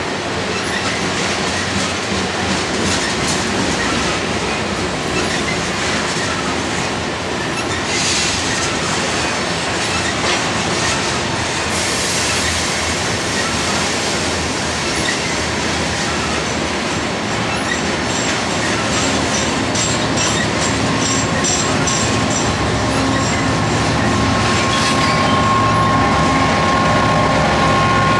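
Two freight trains of covered hopper cars rolling past side by side, their steel wheels clattering over the rail joints with occasional high wheel squeal. Over the last few seconds the low diesel rumble of a BNSF locomotive pushing at the rear of the train grows louder as it draws near.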